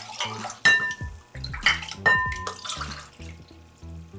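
A small ceramic cup clinking against a ceramic mug and bowl while lamb broth is scooped and poured into the mug. There are two sharp ringing clinks, about a second and two seconds in, with trickling, splashing pours between them.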